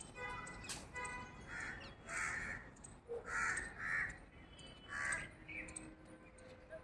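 Crows cawing: about five harsh caws spread over several seconds, agitated by monkeys raiding the tree. A held, high-pitched call or tone sounds in the first second.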